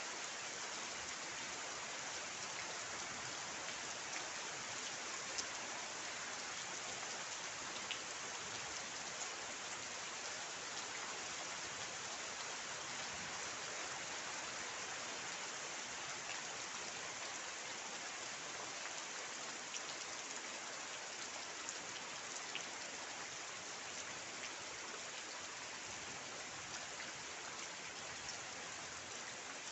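Steady rain falling: an even hiss, with a few single drops ticking out louder now and then.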